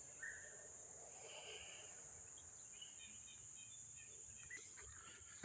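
Faint woodland ambience: a steady high-pitched insect drone, with a few faint scattered chirps.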